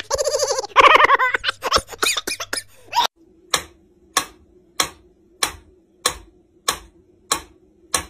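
A wavering pitched sound for about three seconds, then a mechanical pendulum metronome ticking steadily, about three ticks every two seconds.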